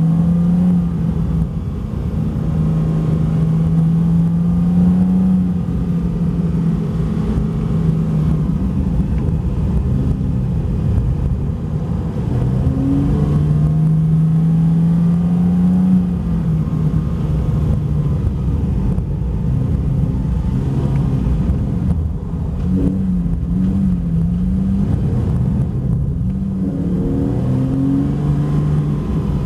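Porsche 911 Carrera 4S (991)'s 3.8-litre flat-six heard from inside the cabin, running at about 3,000 rpm and rising and falling with the throttle as the car slides on ice. Under it runs a steady low rumble from the studded tyres on the ice.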